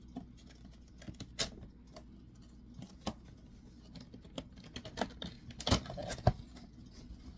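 A cardboard cookware box being handled and turned: scattered light taps and clicks of fingers and flaps on the cardboard, with a cluster of louder knocks about six seconds in.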